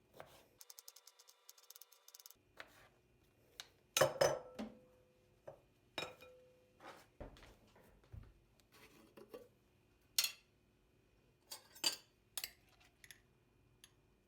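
Kitchen handling sounds: dishes and utensils clinking and knocking, with a quick run of rapid clicks near the start and the loudest knocks about four seconds in.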